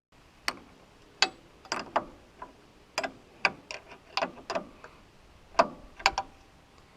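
Irregular sharp metallic clicks and clinks, about fifteen in all, each ringing briefly: hand tools and hardware being handled while shim washers are taken out of the mill carriage.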